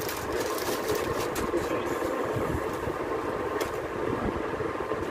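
A steady mechanical hum and rumble, with short rustles of cloth being handled and unfolded.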